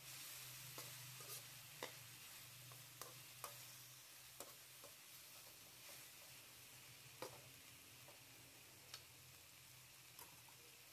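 Chicken pieces sizzling faintly in a steel wok while being stirred with a metal slotted spatula, which clicks and scrapes against the pan about ten times at irregular intervals. A low steady hum runs underneath.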